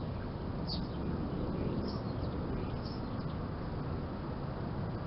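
Small garden birds chirping: three short high calls about a second apart, over a steady low background rumble.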